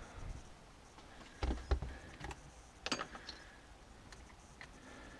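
Knocks and clicks of tools and door hardware being handled while a door is fitted in its frame: a couple of sharp taps about a second and a half in and another about three seconds in.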